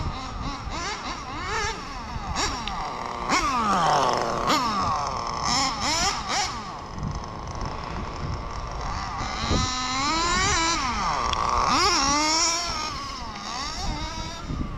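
Kyosho FW06 RC touring car's .12 nitro engine revving up and down as the car is driven around, its high pitch rising and falling with each burst of throttle, sometimes sweeping down as the car goes past. It is a tuning run, on a tune the driver judges perfect.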